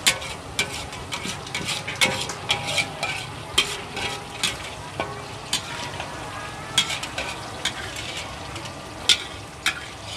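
Long metal spatula scraping and clanking irregularly against a large aluminium wok while scooping out a stir-fry, over a steady frying sizzle.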